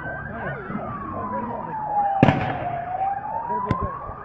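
Emergency-vehicle siren wailing, slowly rising and falling in pitch. Over it a loud bang sounds about two seconds in, and a smaller crack comes near the end.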